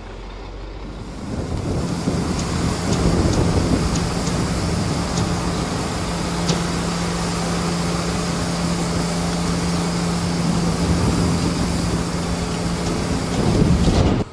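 A heavy diesel engine running steadily with a constant low hum over a dense noisy background, with a few light metallic clicks in the first few seconds. The sound builds up at the start and cuts off suddenly at the end.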